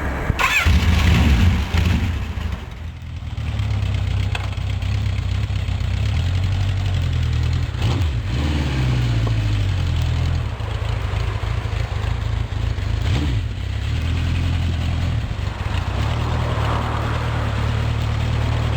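Honda CB750 K0's air-cooled inline-four engine idling, revved up sharply in the first two seconds, then settling to a steady idle with brief rises and falls in pitch about eight and thirteen seconds in.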